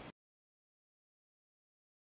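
Dead silence: the background music cuts off abruptly at the very start, leaving no sound at all.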